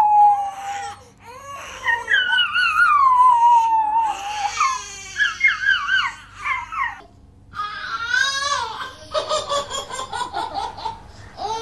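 A small white shaggy dog howling along with a crying newborn baby: long howls that slide down in pitch, mixed with the baby's wavering cries. After a short break about seven seconds in, the sounds change to other baby vocal sounds.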